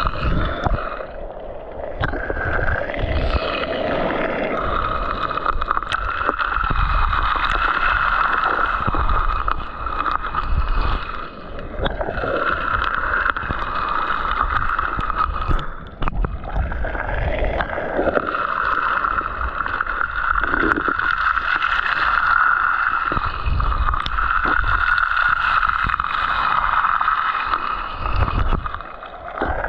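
Sea water gurgling and sloshing close to the microphone, with low rumbling buffets, steady throughout with brief dips.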